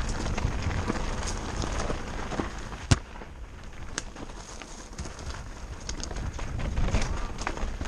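Mountain bike rolling down a rocky, gravelly singletrack: tyres crunching over loose stones and the bike rattling, with sharp clacks of hits on rocks, the loudest about three seconds in and another about four seconds in. A heavy rumble fills the first three seconds, then eases.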